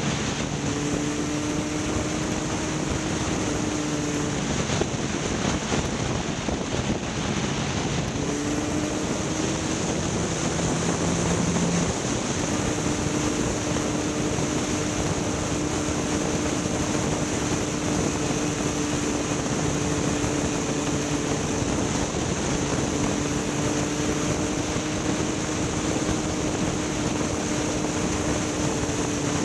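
A vehicle engine running at a steady speed, its hum shifting slightly in pitch now and then, under a constant rush of wind over the microphone.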